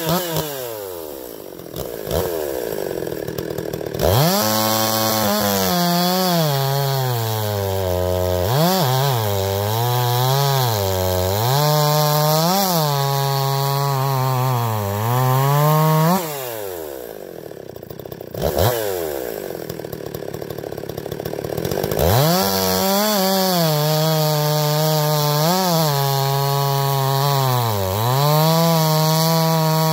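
Muffler-modded Husqvarna 254XP two-stroke chainsaw cutting through ash logs, its engine pitch dipping and recovering again and again as the chain bites. It drops back to idle near the start and again about halfway, then revs up and cuts again each time.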